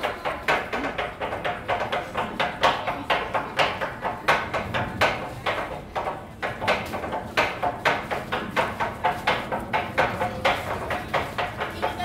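Candy makers' kitchen knives chopping tontoko-ame on a wooden cutting board, a fast rhythmic tapping of about four sharp knocks a second, each with a short ring.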